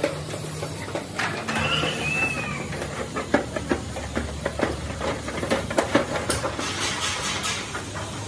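Long-handled hand shears cutting through a thin steel sheet: a run of irregular sharp metallic snips and clicks, coming faster in the second half, with the sheet rattling as it flexes.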